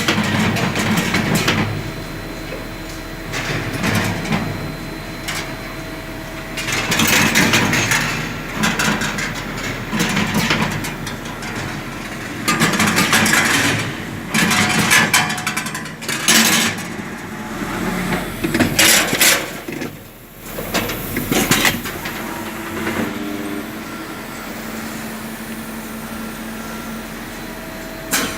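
Automatic wire-bending machine working through its cycles: a steady machine hum with repeated loud bursts of mechanical noise, each a second or two long, as it moves and bends the metal.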